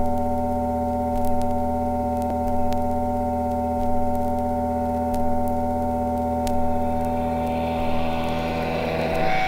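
A flexi-disc record playing a sustained droning chord of steady tones, with scattered surface clicks. The level swells slightly about every 1.3 seconds, once per turn of a disc at 45 rpm. Near the end the chord shifts to new notes.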